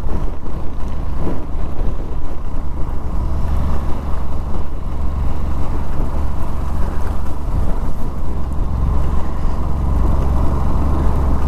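Motorcycle riding along at a steady pace: a continuous low rumble of engine and road noise with no change in speed.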